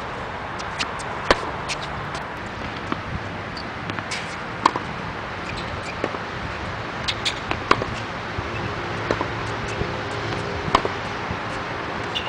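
Tennis balls struck by rackets and bouncing on a hard court during a rally: sharp pops at irregular intervals, over a steady background hiss.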